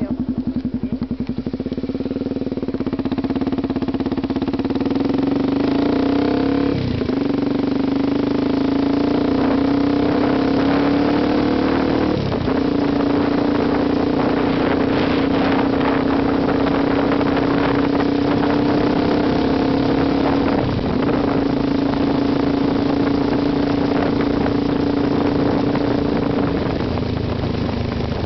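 Honda XR 250 Tornado's single-cylinder four-stroke engine running through a Roncar Aluminium aftermarket exhaust. It starts with a throbbing low note, climbs in pitch over the first several seconds, then holds a steady high note with brief dips about 7, 12 and 21 seconds in, and falls back lower near the end.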